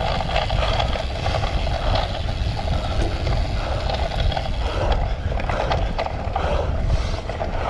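Cyclocross bike ridden hard over rough ground: a steady rumble of wind and tyre noise with the chain and frame rattling and clicking over bumps.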